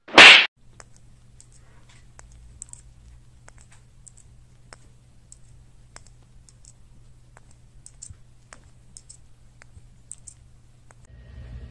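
A short, loud hiss-like burst as one cat swats at another. Then a faint low hum with scattered light clicks and taps at uneven intervals, around a parakeet and a small plastic ball.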